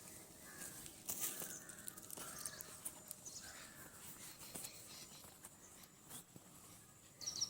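Faint outdoor ambience of birds calling, with short scattered calls and a few light clicks.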